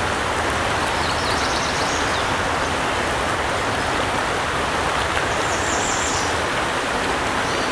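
River water rushing steadily over a riffle of fast water, with short high trills twice in the background.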